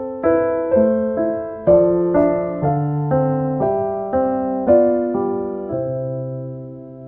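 Background music: soft keyboard chords struck about twice a second, then a last chord held and fading away near the end.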